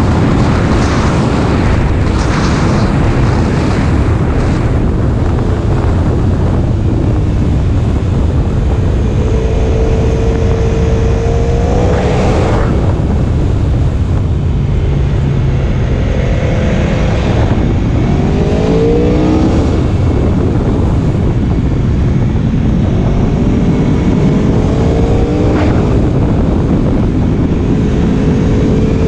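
Aprilia Tuono V4 1100's V4 engine heard from the saddle at road speed, its pitch rising in several sweeps as it accelerates and falling back in between, over a steady heavy wind rush.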